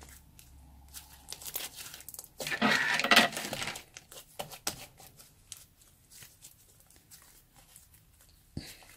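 Purple slime made with kinetic sand being kneaded, stretched and pressed by hand, giving sticky crackles and clicks, with one louder stretch of noise about two and a half seconds in that lasts just over a second.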